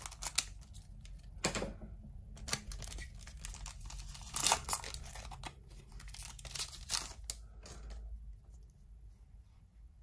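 Foil trading-card booster pack crinkling and tearing as it is cut open with scissors and the cards are pulled out, with crisp crackles and sharp snips; the rustling dies down about eight seconds in.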